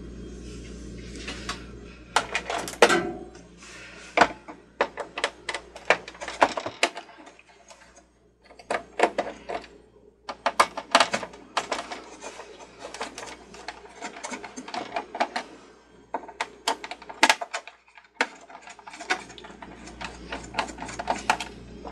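Hands taking apart the plastic housing of an old Cricut Expression cutting machine: irregular clicks, taps and knocks of plastic parts in quick clusters, with a few short pauses.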